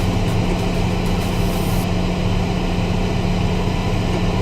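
Grain blower running steadily, blowing shelled corn up the pipe into a silo, with a steady low hum from the machinery driving it.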